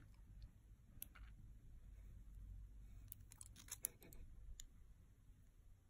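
Near silence with a few faint metallic clicks from small slip-joint pliers being opened, closed and handled, most of them about three to four seconds in.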